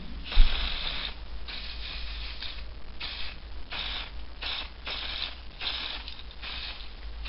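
Aerosol spray-paint can hissing in short bursts, about one or two a second, as a coat of paint is sprayed on. A single knock about half a second in.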